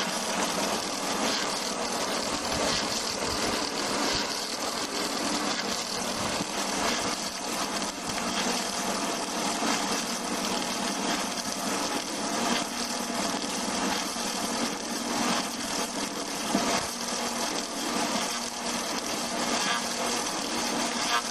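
Log-turning lathe running steadily, its cutter carriage shaving a rotating log round: an even mix of motor hum and cutting noise.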